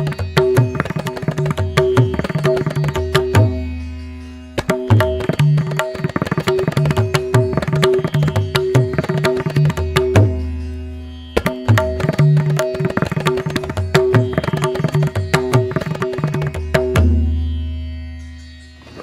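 Background music: quick hand-drum strokes over held drone notes. The drumming breaks off and fades twice before starting again, then stops near the end, leaving a low note dying away.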